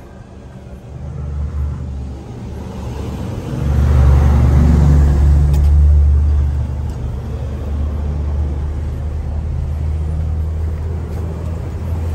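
A motor vehicle engine running close by, growing louder to a peak about four seconds in, then running on steadily.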